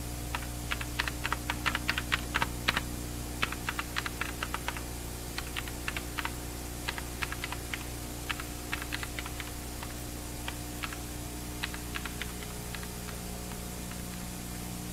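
Fast typing on a computer keyboard: irregular runs of keystroke clicks that thin out in the second half and stop about twelve seconds in, over a steady low hum.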